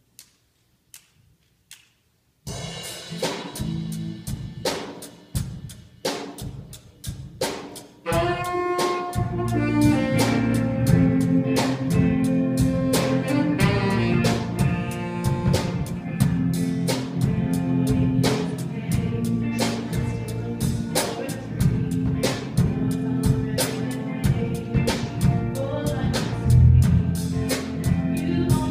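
A praise band playing a song's instrumental intro. After a few faint clicks, the drums come in about two and a half seconds in, and bass and the rest of the band join around eight seconds in.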